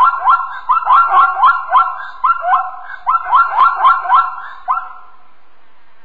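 Zebra barking: a fast series of short, rising yelps, about three a second. The calls stop about five seconds in, leaving a faint steady hiss.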